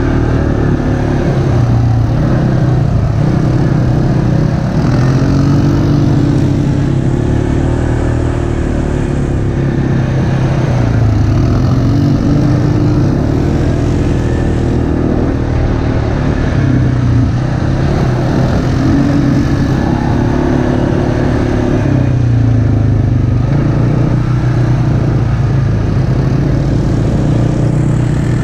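ATV engine running while under way, its pitch rising and falling as the throttle is opened and eased.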